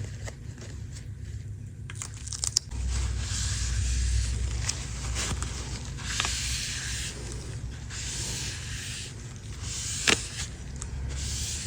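Razor blade scraping grime off the back of an iPad in repeated strokes a second or two long, with a couple of sharp clicks.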